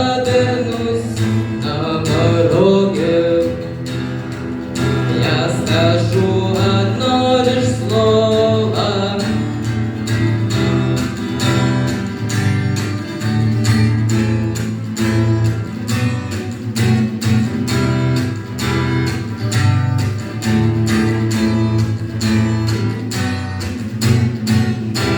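Acoustic guitar strummed in a steady rhythm, with a voice singing a melody over it for the first nine seconds or so. After that the guitar plays on alone in the same strumming pattern.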